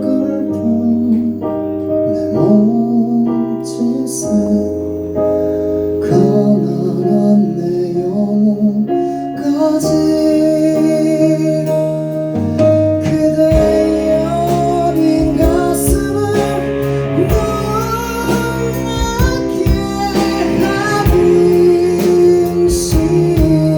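Live band playing a slow ballad, led by sustained keyboard chords; drums come in about 14 seconds in, with a melody line moving over the chords.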